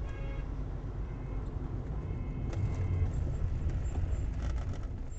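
A car driving, heard from inside its cabin: a steady low rumble of engine and road noise that grows a little louder in the second half.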